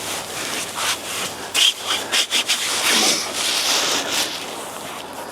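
Cloth wiping and scrubbing over a Tesla's plastic door sill and seal with isopropyl alcohol, in uneven rubbing strokes.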